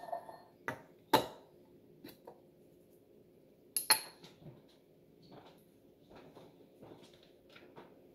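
A ceramic mug and a glass teapot set down on a stone countertop with sharp knocks and clinks, the loudest about a second in. Another loud clink about four seconds in as the teapot's lid is laid on the counter, then a few fainter knocks.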